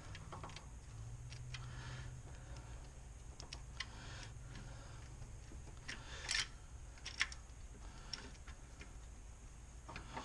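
Faint, scattered metallic clicks and light rattles of a Ford 5.4L 3-valve engine's timing chain being worked off the cam phaser sprocket by hand. The sharpest clicks come a little past halfway.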